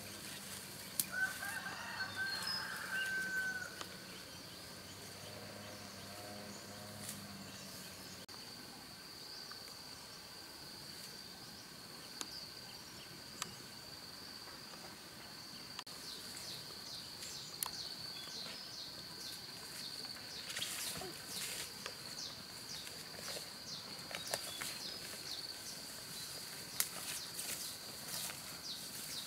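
A rooster crows once, about a second in, over a steady high whine. A shorter, lower call follows a few seconds later, and scattered light clicks and taps come in the second half.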